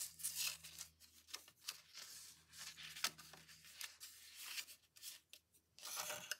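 Patterned paper being folded along its score lines, crinkling and rustling, with a bone folder scraping over the folds to crease them. Scattered short rustles and scrapes with a few sharp clicks.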